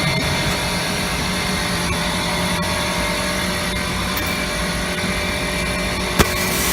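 Steady machine noise at an even level, with one sharp click about six seconds in.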